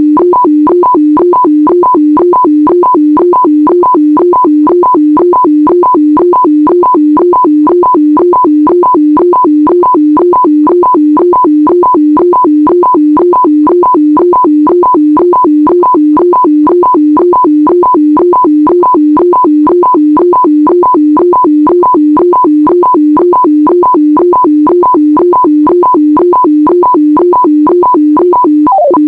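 HF radiofax (shortwave weather-fax) signal: a steady low tone broken by short, higher blips repeating evenly about two times a second.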